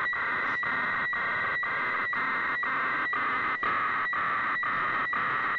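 HF radiofax (weather fax) signal received on 4.316 MHz through a shortwave receiver: a steady whistle over a hissing, warbling band of tones, broken by a brief dip about twice a second as each scan line is sent.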